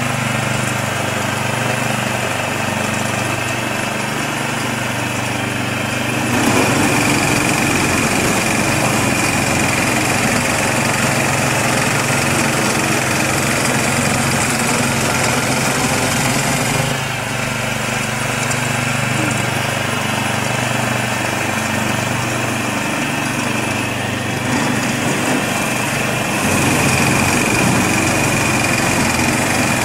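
Small engine of a Marko tiller running steadily, driving a belt-driven snow blower attachment as it clears snow. About six seconds in the sound grows louder, with a high steady whine and a hiss, then eases back about ten seconds later. It rises again near the end.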